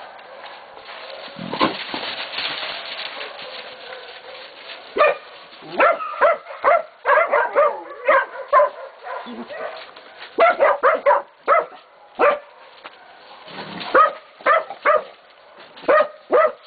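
Catahoula and Black Mouth Cur pups baying a pig: many short, sharp barks, irregular and often several a second, holding the pig at bay. The barking starts about five seconds in, after a few seconds of rough, noisy commotion.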